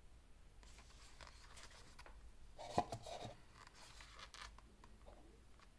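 Faint handling noise of a Casio Edifice chronograph wristwatch held in the hand: light rubbing and scratching against the case, with one sharp click nearly three seconds in.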